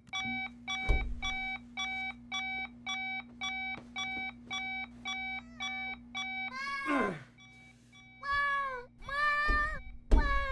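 Electronic beeping repeating about twice a second, with a steady hum underneath, for the first two-thirds; then a cat meows three times, the first call falling in pitch.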